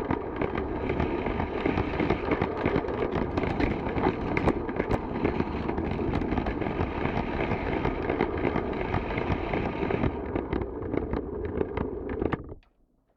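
Motorised Lego train running on plastic track: a steady rattling rumble with many small clicks, which stops abruptly near the end.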